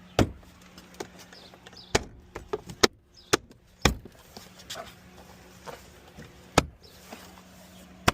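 Irregular sharp clicks and knocks, about a dozen, from handling the truck's rear door trim and speaker parts.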